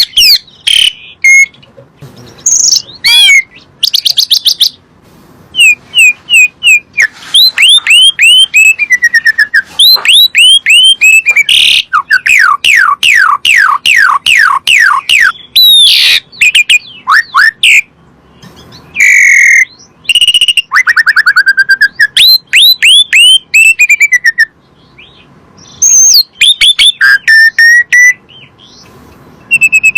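Asian pied starling (jalak suren) singing: a busy, loud run of rapid whistles and chirps, many notes sliding down in pitch, in bursts with short pauses.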